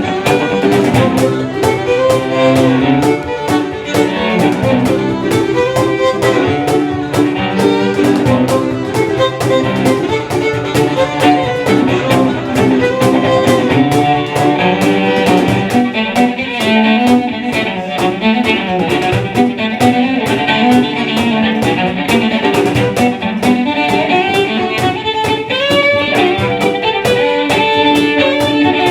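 A band playing an instrumental tune with a steady beat, a fiddle carrying the melody over the accompaniment.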